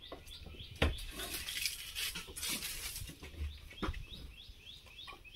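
A desi cow drinking from a steel pail, with sharp knocks of the pail and low gulping. A small bird chirps over it, about three short chirps a second.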